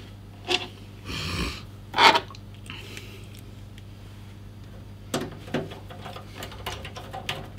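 Hand-tool handling at a desk: a few light clicks and a short scrape, then one sharp clack about two seconds in, and scattered small ticks near the end, as a screwdriver and small metal parts are picked up and handled. A steady low hum runs underneath.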